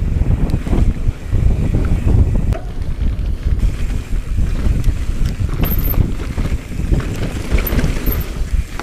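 Wind buffeting the microphone as a Transition Smuggler 29er mountain bike rides fast on a dirt trail, over a steady rumble of tyres with many small knocks and rattles from the bike.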